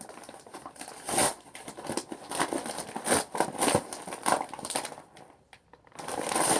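Packaging crinkling and rustling in irregular bursts as an Amazon package is opened by hand, with a short lull near the end.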